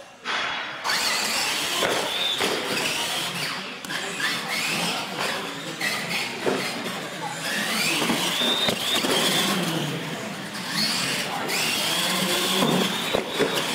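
Electric R/C monster trucks racing: a mechanical whine from their motors and gearing that starts abruptly about a second in and rises in pitch several times as they accelerate, over a steady rushing noise.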